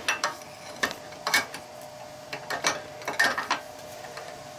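Irregular metal clinks and knocks as a fitting is set down and shifted on the steel bed of a wood lathe, over a faint steady hum.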